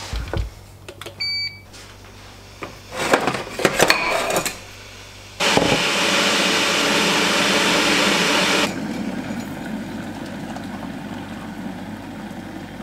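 An electric kettle beeps briefly as it is switched on, and a ceramic mug clinks on the kitchen bench. A loud steady hiss, the kettle coming to the boil, cuts in and out abruptly. It is followed by a quieter rushing as hot water is poured into the mug.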